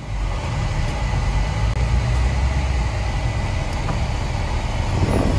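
Car running, heard from inside the cabin: a steady low rumble.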